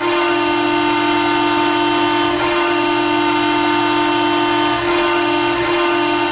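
Ottawa Senators hockey arena goal horn sounding: one steady, deep blast that starts suddenly and holds at an even pitch.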